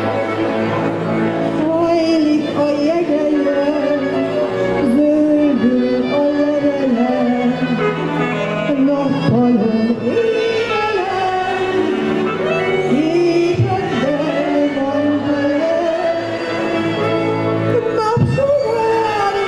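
A woman sings a Hungarian nóta (popular art song) into a microphone, accompanied by a Gypsy string band of violins, cimbalom and double bass.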